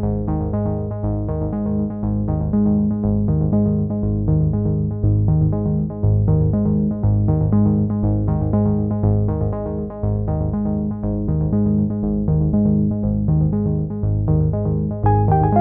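Background music: synthesizer and keyboard notes repeating in a steady rhythm with a deep bass line.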